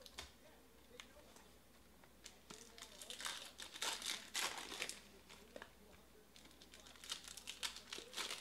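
Foil wrapper of a Panini Chronicles football card pack crinkling and tearing as it is opened by hand, in two bouts of rustling, the second near the end.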